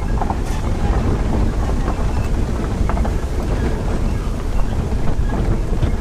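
A car driving along a rough road, heard from inside the cabin: a steady low rumble of engine and tyres, with wind buffeting the microphone.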